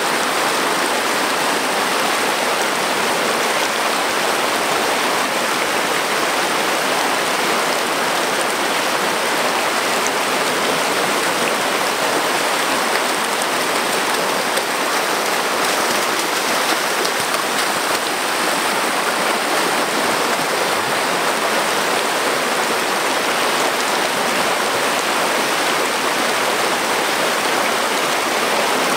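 Shallow river rapids pouring over sloping rock slabs: a steady, unbroken rush of white water.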